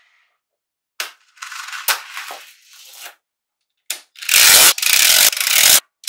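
Small magnetic balls clicking and rattling against one another, with a plastic card scraping over them as a slab of balls is slid off the card into place. A softer scraping rustle comes first, then a sharp click, and in the second half a loud, dense rattle with short breaks.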